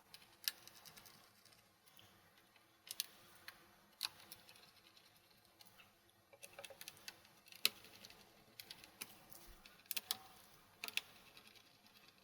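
Faint, irregular clicks and ticks of a small screwdriver driving screws back into a laptop's bottom cover.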